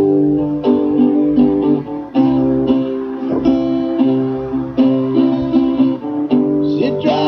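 Guitar strumming chords in an instrumental passage, the chords changing about every second.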